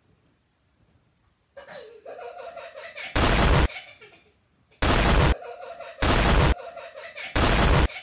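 A child laughing in quick pulses, starting about a second and a half in, cut by four loud half-second bursts of harsh noise that are the loudest sound.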